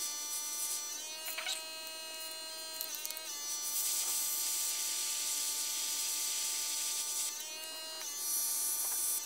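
Small airbrush compressor running with a steady whine whose pitch drops slightly while the airbrush is spraying; the hiss of the airbrush spraying paint comes in two spells, from about three to seven seconds in and again near the end.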